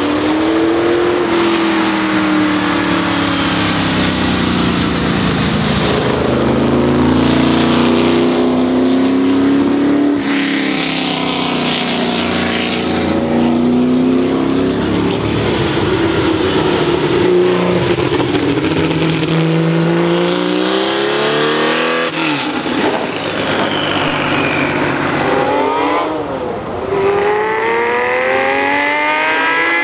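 Racing engine of a red 1960s sports-prototype accelerating hard up through the gears, its note climbing and dropping back with each gearchange as the car passes. About 26 seconds in, a second car, a white Porsche 906, launches with a run of quick rising revs.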